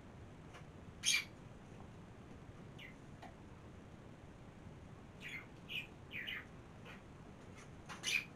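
Small birds chirping: a scattered series of short, high chirps, several falling in pitch, with two louder ones about a second in and near the end.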